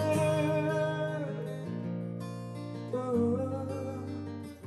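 Acoustic guitar strumming the closing chords of a song, one at the start and another about three seconds in, each left to ring and fading toward the end. A man's held sung note trails off in the first second or so.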